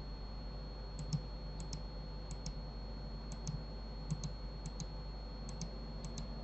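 Clicking at a computer's mouse and keyboard: about eight pairs of short clicks, each a press and release a split second apart, over a faint steady electrical hum with a thin high whine.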